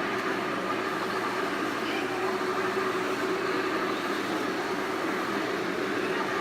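Many radio-controlled model tanks running at once, a steady mechanical whine and rumble.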